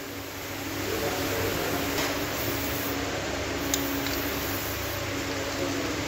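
A steady mechanical hum with a faint steady tone, unchanging throughout.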